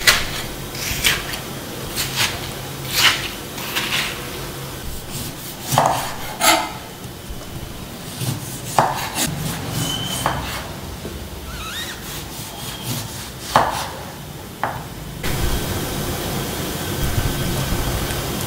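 A metal spoon scraping and clicking against the flesh and rind of a hollowed-out watermelon, in quick strokes for the first several seconds. Then a few separate knocks of a chef's knife on a wooden chopping board as a lime is cut.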